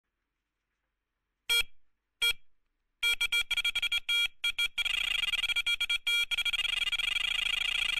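Electronic intro sound effect: two short synthetic tone hits, then a rapid stutter of beeping tones that runs together into a steady, fast-pulsing electronic tone after about six seconds.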